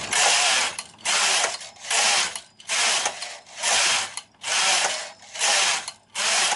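Carriage of a Silver Reed SK160 6.5 mm mid-gauge knitting machine being pushed back and forth across the needle bed, knitting rows of main yarn. Each pass is a rasping whirr lasting under a second, with short pauses at each turn, about seven passes in a row.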